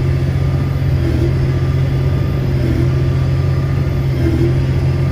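Tractor engine running steadily under load while pulling a baler, a constant low drone with a faint beat about every second and a half.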